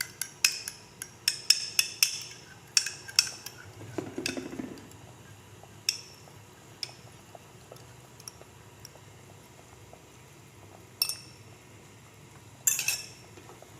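Metal utensil clinking against cookware: a quick run of clinks for the first few seconds, then a few scattered single clinks, with a louder pair near the end.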